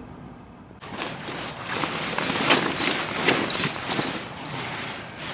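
Sleeping bag and bedding rustling and crinkling as a person lies down and settles in, starting suddenly about a second in and running on as an uneven rustle.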